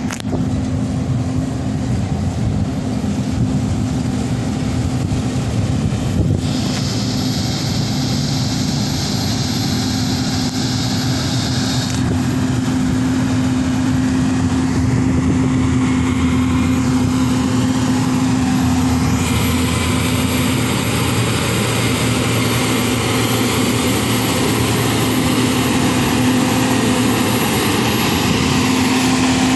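LiuGong 4160D motor grader's 160 hp Ashok Leyland diesel engine running steadily under load as the grader blades soil, growing slightly louder as the machine comes close.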